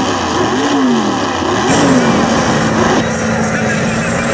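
Big engines of lifted Ford Super Duty mud trucks: revved up and down three times, then held at a steady pitch through the mud.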